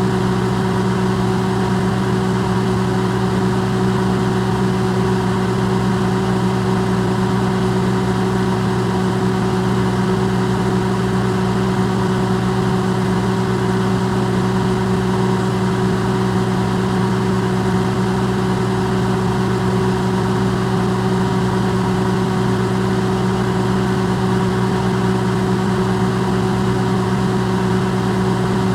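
Electrolux microwave oven running, recorded amplified: a loud, steady electrical hum with an even whirring noise over it, unchanging throughout.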